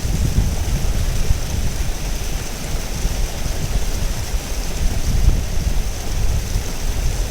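River water running steadily: an even rushing hiss over a deep, restless rumble.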